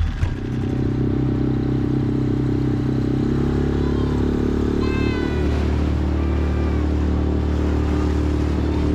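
Small outboard motor on an inflatable dinghy catching just after being pull-started and running steadily under way, its note changing about three seconds in.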